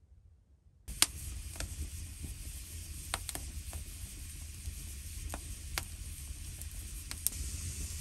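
Food sizzling in a hot pan: a steady hiss with scattered sharp pops, starting suddenly about a second in with the loudest pop.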